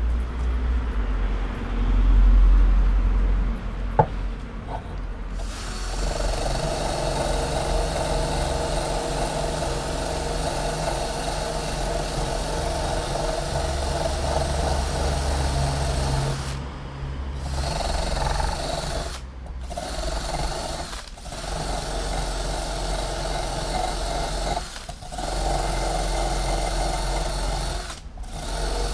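An engine running steadily at idle, with a low rumble over the first few seconds and a single sharp click about four seconds in.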